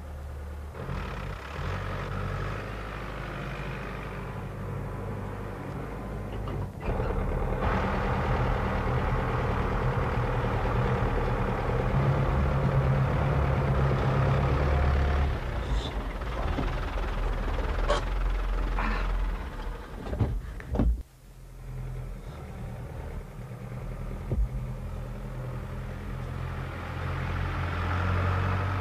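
Farm tractor engine running steadily under load, getting louder about seven seconds in, with a few sharp knocks near the middle and a short drop in sound about two-thirds of the way through.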